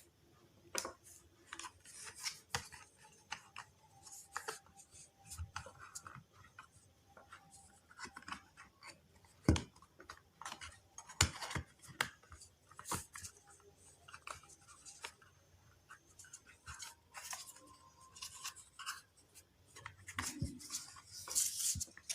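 A small portable speaker's plastic housing being handled and fitted back together by hand: irregular sharp clicks and knocks of parts seating, with scraping and rubbing between them. The loudest clicks come in the middle.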